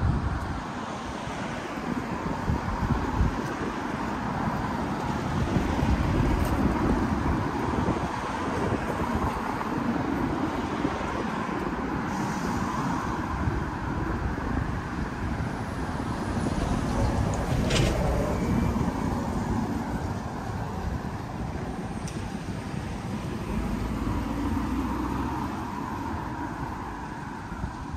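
Road traffic on a city street: cars and other vehicles passing, the engine and tyre noise swelling and fading as each goes by. A brief sharp click or knock sounds about two-thirds of the way through.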